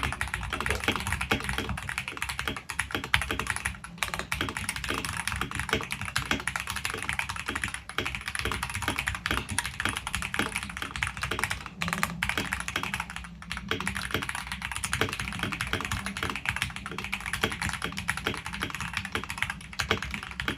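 Fast typing on a computer keyboard at about 110 words per minute: a rapid, continuous stream of key clicks with a few brief pauses.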